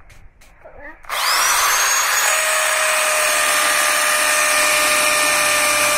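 Bosch GSB 550 impact drill, set to hammer mode, starting up about a second in with a quick rising whine, then running steadily at full speed as it bores into a block.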